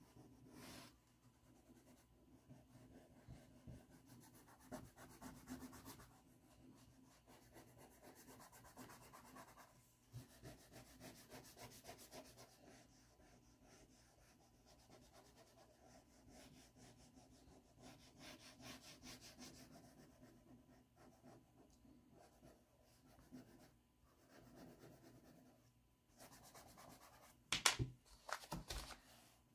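Faint scratchy rubbing of a pastel crayon on paper, quick back-and-forth shading strokes. Near the end, a few louder knocks.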